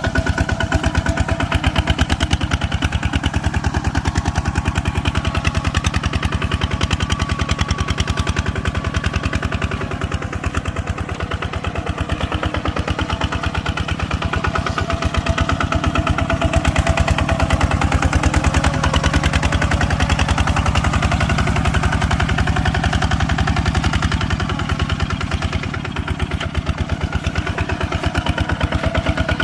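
A farm machine's engine running steadily with a rapid, even chugging, its load easing slightly twice.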